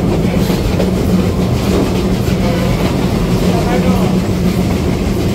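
Train running along the track, heard from an open-sided passenger carriage: a steady rumble of the wheels on the rails with a steady low hum.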